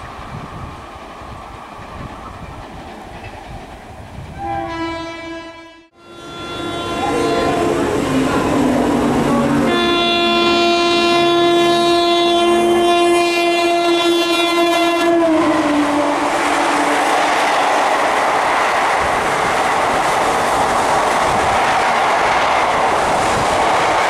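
Indian Railways WAP-4 electric locomotive sounding its multi-note horn, a chord held for about five seconds, then passing close at speed with its passenger coaches with loud rushing and wheel clatter. A shorter horn blast comes about five seconds in, before a sudden cut.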